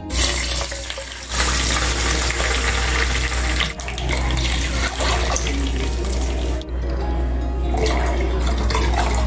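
Water poured from a cup into a pan of hot fat, splashing and sizzling, with a short break a little under seven seconds in before milk is poured in the same way.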